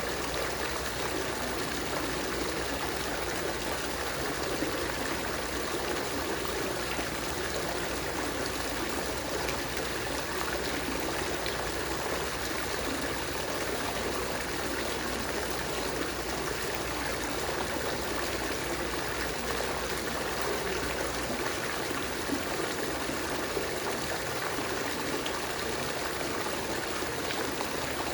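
Water fountain running, with water splashing and trickling steadily.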